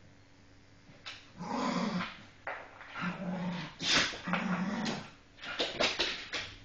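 Staffordshire bull terriers play-fighting and growling. The growls come in several rough bursts after a short quiet start, then give way to a quick run of sharper, shorter sounds near the end.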